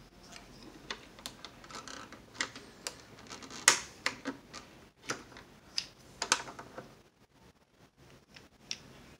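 Irregular clicks and light knocks of fingers working a switch and its knob on the front of a Zenith tube radio, the loudest about three and a half seconds in, thinning out after about seven seconds. The switch is being pushed to see whether it goes in all the way.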